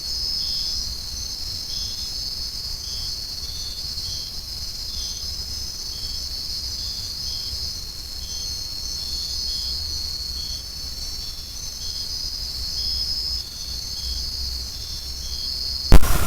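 A chorus of insects giving a steady, high, shrill trill, with a second insect chirping short notes about twice a second. A sudden loud click or knock comes near the very end.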